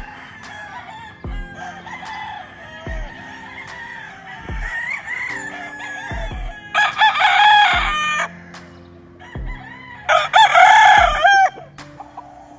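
Rooster crowing twice, each crow about a second and a half long, the second coming about two seconds after the first, over background music with a slow, regular low beat.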